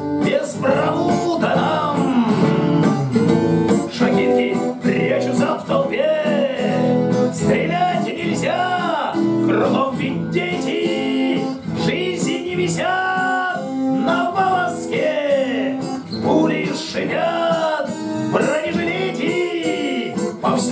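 Twelve-string acoustic guitar strummed steadily, with a man's voice over it singing long notes that rise and fall.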